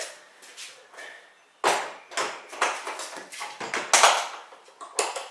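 Knocks, clunks and scrapes of a heavy hard-shell transport case being handled, starting suddenly about a second and a half in and repeating several times.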